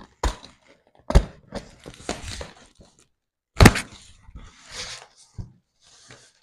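A large cardboard shipping box being cut and torn open: packing tape tearing, cardboard flaps crinkling and scraping, with a few sharp knocks. The loudest knocks come about a second in and about three and a half seconds in.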